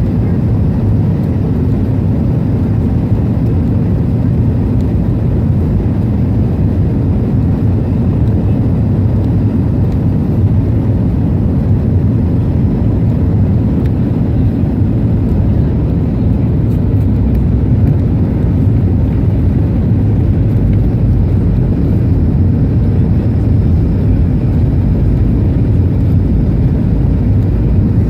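Steady low rumble of a jet airliner in flight: engine and airflow noise as heard inside the cabin.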